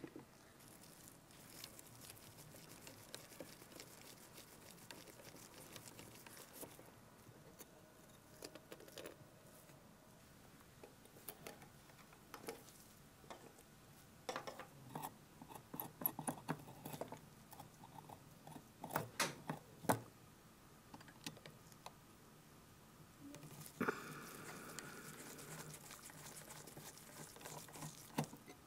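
Small-tool disassembly of a rusted Zeiss Ikon Tenax camera's metal body: faint screwdriver scraping at first, then a run of sharp clicks and clinks as small metal parts are handled and set down. Near the end comes a steadier grinding as a bit works into a rusted, seized screw.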